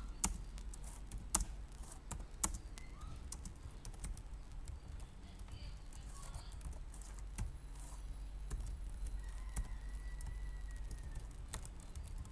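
Computer keyboard being typed on: scattered, irregular keystroke clicks with short pauses between them, a few louder ones in the first two and a half seconds, over a low steady hum.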